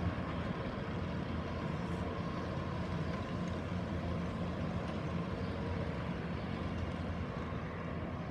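Compact track loader's diesel engine running steadily while it works, pulling up old artificial turf.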